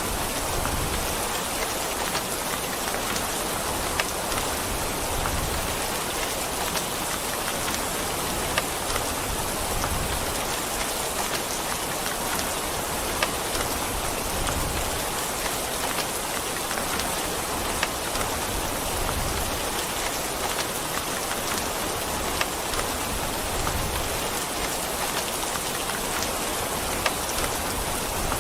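Steady rain falling, a dense even hiss of drops with sharper single drop hits ticking out now and then.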